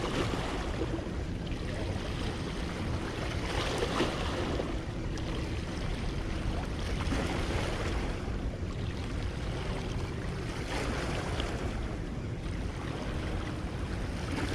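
Small waves of bay water lapping, with wind on the microphone: a steady wash of noise.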